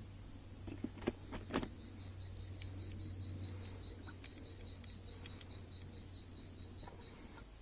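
Crickets and other night insects calling: a high chirp repeating about four times a second, joined by a second insect trilling from about two and a half to five and a half seconds in. A low steady hum runs underneath, and there are a couple of light knocks about a second in.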